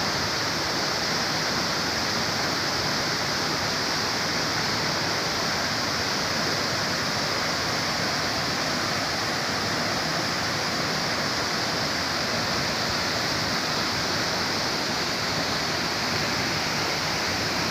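Waterfall: falling water making a steady, even rush with no breaks or changes.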